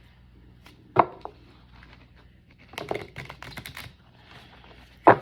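Tarot cards being shuffled and handled: a sharp knock about a second in, a quick run of clicks around the three-second mark, and another sharp knock near the end.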